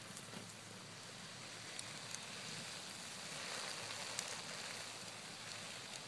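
Wood campfire burning: a steady crackling hiss that swells a little midway, with a few sharp pops, the sharpest about four seconds in.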